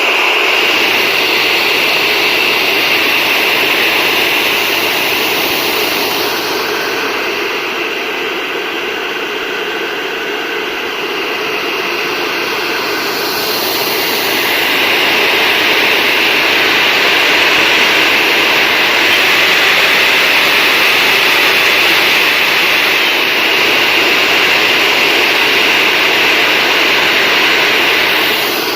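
Hair dryer running steadily: a constant rushing blow of air with a high-pitched edge. It softens slightly about a third of the way through, then comes back up.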